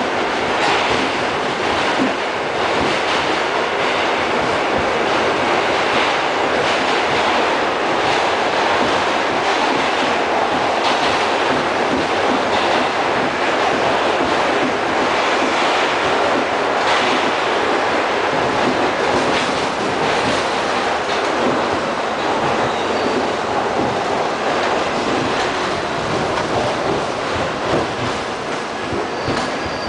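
Inside an R68 subway car running through the tunnel: a steady, loud rumble of wheels on rail with irregular clicks from the track. A faint high squeal comes near the end.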